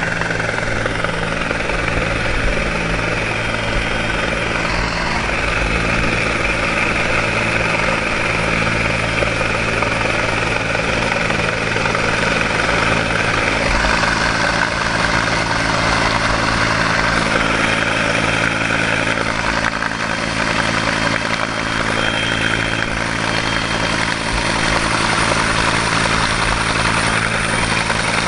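Hovering helicopter running steadily overhead, its rotor and turbine close above, with the rotor wash blowing on the microphone.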